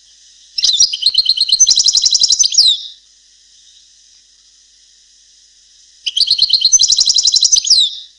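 A trained European goldfinch singing in the Palestinian song style: two phrases of rapid, trilled notes, each about two seconds long and ending on a falling note, over a steady hiss.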